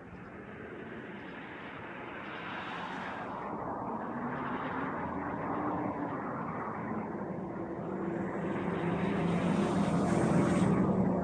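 A passing vehicle's engine noise, building steadily louder to a peak near the end, with a faint high whine in the last few seconds.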